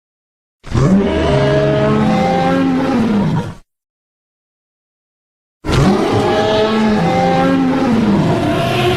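Tyrannosaurus rex roar sound effect played twice: two long growling roars of about three seconds each, the first starting about a second in and the second about halfway through, each rising and then falling in pitch, with dead silence between them.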